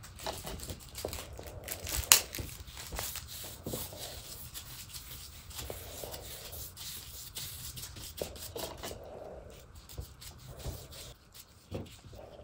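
A cloth rag rubbing oil stain over the wood of a door, with scattered light clicks and one sharp knock about two seconds in.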